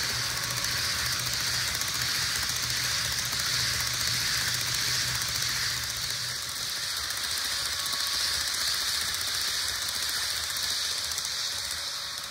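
HO scale model train running on track: a steady mechanical whirr of the motor and gears, with a low hum underneath that drops out about halfway through.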